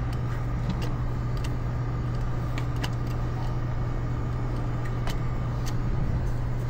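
Steady low machinery hum with a faint steady whine above it, and a few light metallic clicks from pliers working at an electric motor's wire terminals.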